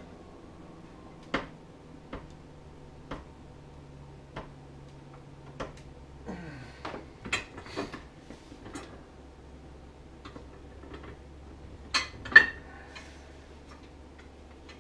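Scattered light metallic clicks and clinks of hand tools against a snowmobile clutch and its removal fixture, with two sharper clanks about twelve seconds in, over a steady low hum.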